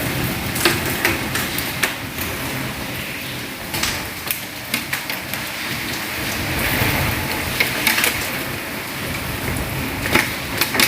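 Heavy rain falling steadily, with sharp drips and splashes striking a nearby surface every second or so.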